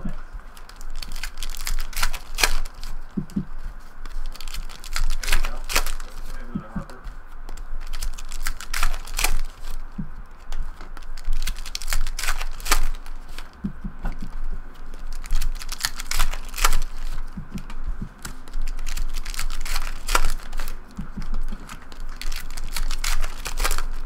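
Foil trading-card packs being handled, stacked and torn open on a table: irregular sharp clicks and taps of packs and cards, with some wrapper crinkling.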